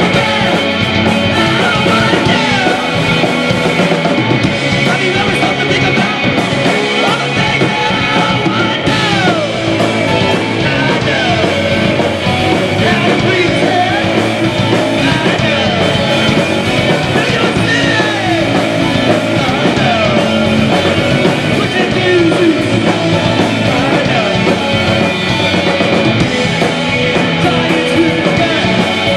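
Live post-punk band playing loud and steady: electric bass, electric guitar and drums, with the bassist singing over them.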